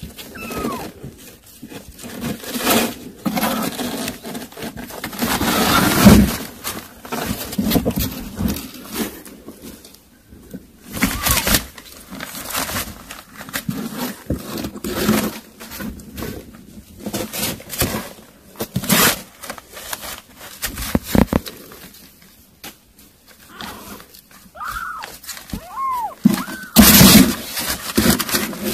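Kittens scrabbling and tussling on newspaper and cardboard: irregular rustling, scraping and soft thumps. A few short high kitten mews come about half a second in and again near the end.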